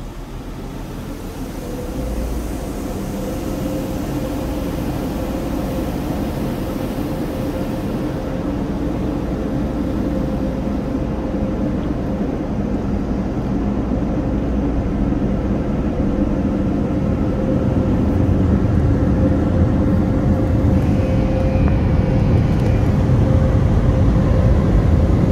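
Car-wash blower dryers running, heard from inside the car: a steady rushing of air with a fan whine, growing louder toward the end.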